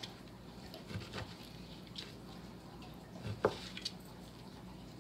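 Kitchen knife cutting raw chicken breast into pieces on a plastic cutting board: a few soft, scattered taps of the blade against the board, the clearest about three and a half seconds in.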